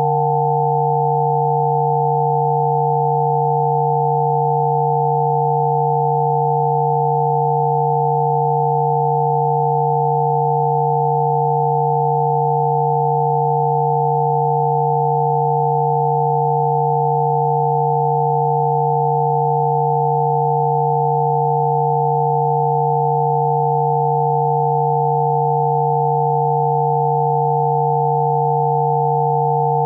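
Several steady sine tones sounding together, one low and two or three higher, unchanging in pitch and loudness. They are Spooky2 Rife frequency tones, the set offered for sneezing.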